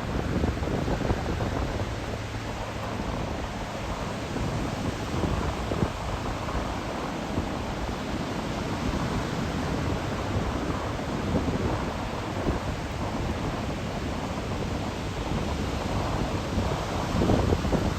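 Typhoon wind buffeting the microphone in gusts over the steady noise of breaking surf.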